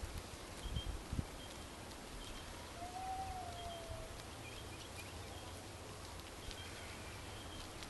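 Sheep grazing quietly: faint soft clicks and rustles of grass being pulled, over a low rumble of wind on the microphone, with one faint drawn-out call about three seconds in.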